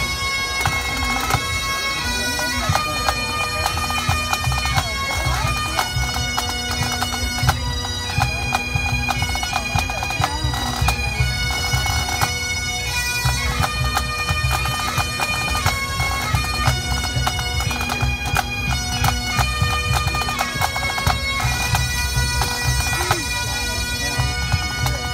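A pipe band of Great Highland bagpipes and drums playing a quick march medley in competition: the chanters carry a changing melody over the constant drone, with steady drumming underneath.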